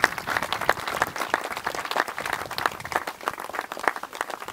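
Audience applauding: a dense patter of hand claps that thins out after about three seconds.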